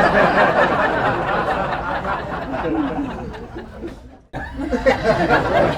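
Sound-effect clip of a group of people laughing and chuckling. It breaks off briefly about four seconds in, and a similar laughter clip starts straight after.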